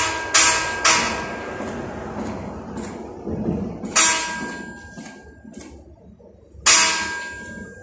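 A long steel beam being struck by hand, each blow clanging and ringing on. There are two quick blows at the start, then lighter taps, then louder single strikes about four seconds in and near the end.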